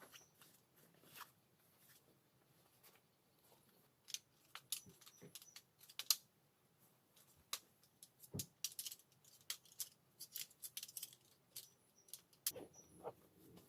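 Faint, irregular clicks and light knocks scattered through, with a louder click about six seconds in and a duller knock a little over eight seconds in.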